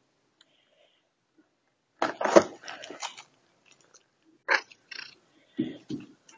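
Loud crunching, rubbing noises right at the microphone in three bunches, the first and loudest about two seconds in, as a cat rubs its face and whiskers against the phone.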